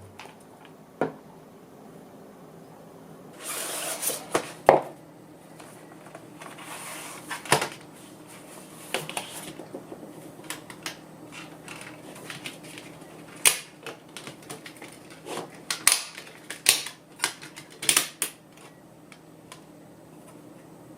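Irregular light clicks and taps of small hard objects being handled, with a brief rustle about three and a half seconds in, over a faint steady hum.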